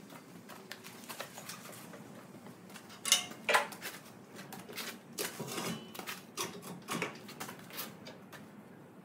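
Scattered metal clanks and clicks from hands working on a Fortuna power hacksaw, with two louder knocks close together about three seconds in.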